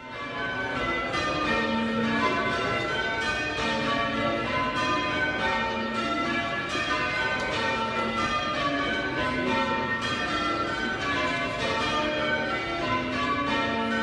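A ring of eight church bells, mostly cast by John Taylor and Co. with two Whitechapel trebles, rung full circle on ropes by a band of ringers, each bell striking in quick succession in continuous rows of change ringing. The ringing starts abruptly as the sound cuts in.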